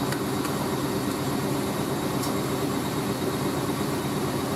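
Hoover A3060 Electronic 1100 washing machine spinning a load of towels steadily at around 500 rpm on its final spin: an even motor and drum hum with a few faint ticks. The load is now fairly well balanced, with only slight back-and-forth movement.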